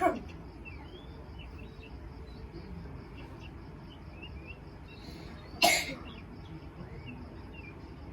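A child with a cough coughing: one cough right at the start and another loud cough about five and a half seconds in.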